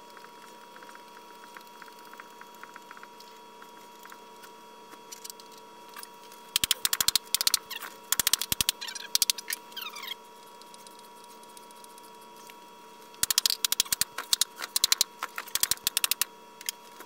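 A ball-peen hammer tapping a steel band clamped around a wooden stump, seating the band as it is drawn tight. The taps come in two runs of quick, sharp strikes, one near the middle and one near the end, after a few seconds of only faint ticking.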